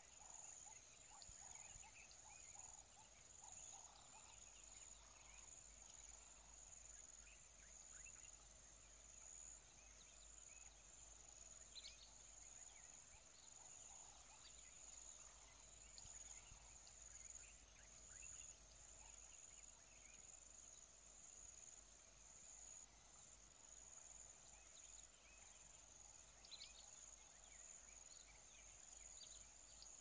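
Faint outdoor nature ambience: a steady high-pitched insect drone, like crickets or cicadas, with faint scattered chirps now and then.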